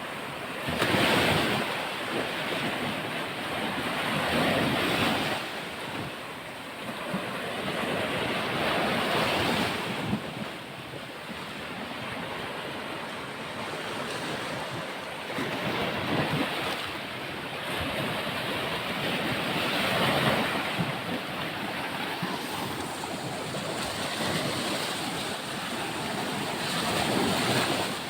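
Sea waves breaking on the shore, the surf surging and falling back every few seconds, with some wind on the microphone.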